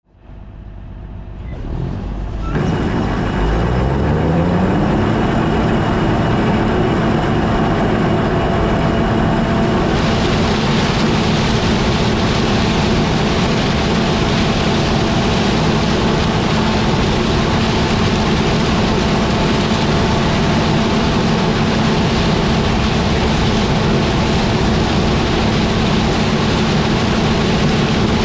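Combine harvester running: the sound comes in and its pitch climbs for the first few seconds as it speeds up, then it runs steadily.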